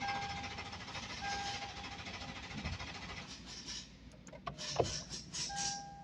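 Lexus LX 570's 5.7-litre V8 being cranked by the starter for about three seconds without firing, then the cranking stops, followed by a few clicks. A dashboard warning chime sounds on and off over it. The engine cranks but won't start, which the mechanic puts down to a relay still at fault.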